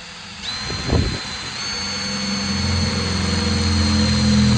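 Cordless drill running steadily as it bores a hole through the van's sheet-metal roof, with a high whine from the motor. It grows gradually louder as it bears down, with a single knock about a second in.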